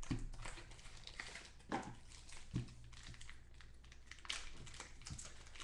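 Faint crinkling and rustling of a trading card pack's wrapper being torn open by hand, with a few short sharp crackles.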